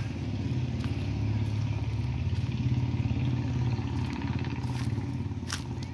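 A motor vehicle's engine running nearby, a steady low hum that grows louder over the first few seconds and then eases off, as a vehicle passing by would.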